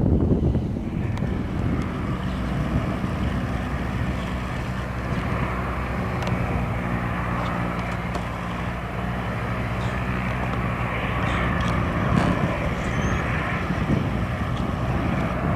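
Airplane engine running steadily with an even drone, its tones fading out about twelve seconds in.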